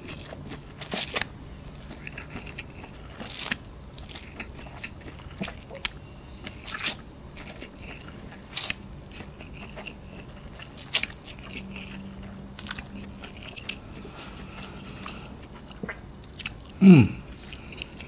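Close-up crunching and chewing of dry, uncooked Mi Sedaap instant noodles eaten by hand, with a sharp crunchy bite every second or two. Near the end comes a short low voice sound falling in pitch, the loudest thing here.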